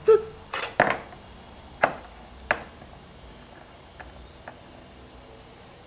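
Small plastic toy figures being handled and knocked against a wooden tabletop: several sharp taps in the first three seconds, then a couple of fainter ticks around four seconds in.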